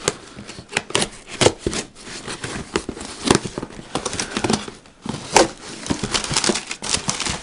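A folding pocket knife slitting the packing tape on a cardboard box, with irregular scrapes, clicks and taps of blade and cardboard. Near the end the flaps are pulled open and crumpled packing paper crinkles.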